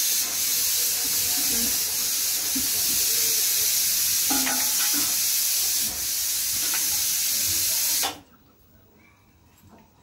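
Loud steady hiss that cuts off suddenly about eight seconds in, leaving only faint small sounds.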